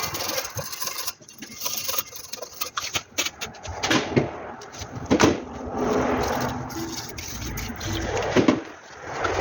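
Metal brake parts and hand tools being handled and scraped: irregular scraping with scattered clinks and knocks, the sharpest about four and five seconds in.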